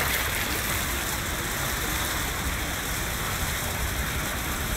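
Coot splashing as it runs across the water surface at the start, over steady rushing outdoor noise.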